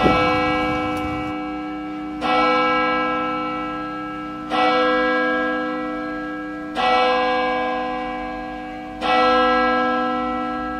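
Church bell tolling, struck five times at an even pace of about one stroke every two and a quarter seconds. Each stroke rings on with several steady tones and fades slowly before the next.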